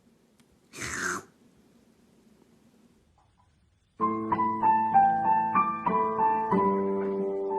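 A short, noisy sound about a second in, then piano music starts about four seconds in: a light melody of single struck notes over held chords.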